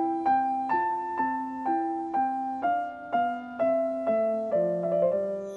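Background music: a slow keyboard melody with a piano-like tone, one note struck about every half second, each note fading before the next.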